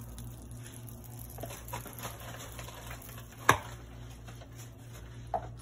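Mini electric waffle maker being loaded: a few soft clicks and taps as batter is poured in, then one sharp clack about three and a half seconds in as the lid is shut, and a smaller click near the end.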